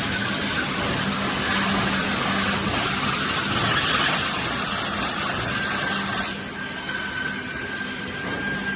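Bubble-wrap zipper-bag making machine running, a steady hum under a loud hiss; the hiss falls away about six seconds in while the hum carries on.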